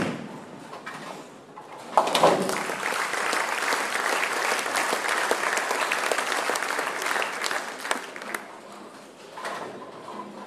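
A thump at the start, then a bowling ball crashing into the pins about two seconds in as the player converts a spare. A crowd applauds loudly for about six seconds before the applause dies away.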